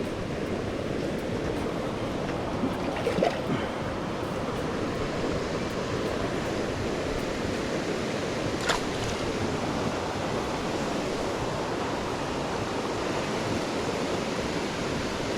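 Steady rush of a stream running high after rain, an even wash of water noise. A few faint knocks come about three seconds in, and a single sharp click near the middle.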